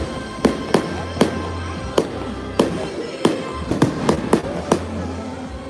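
Fireworks going off in an irregular string of about a dozen sharp bangs over music. The bangs stop a little before the end while the music goes on.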